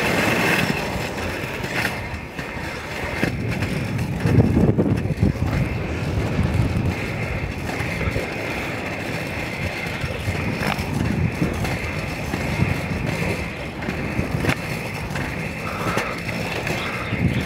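Inline skate wheels rolling over paved park paths: a steady rolling rumble with an occasional sharp click.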